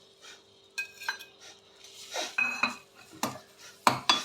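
A metal spoon clinking and knocking against a cooking pan, a series of sharp strikes, as ginger is added to the ghee in the pan. A faint steady hum runs underneath.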